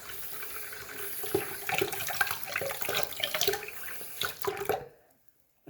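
Sink tap running, the water splashing over fidget toys being rinsed by hand, then stopping abruptly near the end.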